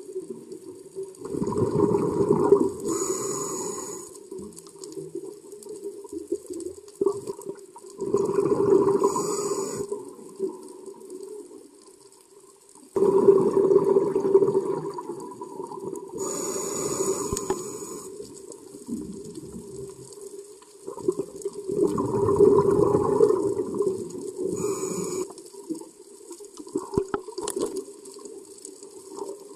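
Scuba diver breathing through a regulator, heard underwater: four breaths, each a long burst of bubbling exhaust bubbles paired with a short sharp hiss from the regulator, with calmer water noise in between.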